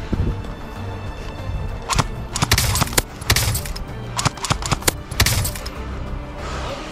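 Several short bursts of airsoft rifle fire, sharp cracking shots in quick groups, with a steady music track underneath.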